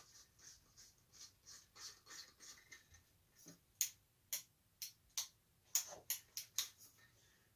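Soft ticking for the first three seconds, then a string of sharp single clicks, about two a second, from a lamp socket's turn-key switch being turned while the bulb lights.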